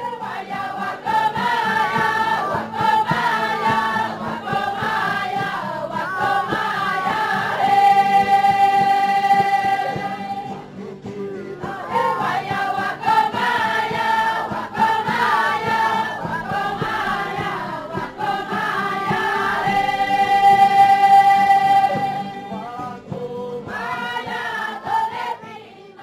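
A group of voices singing a chant, the same phrase sung twice, each time ending on a long held note (about eight and twenty seconds in).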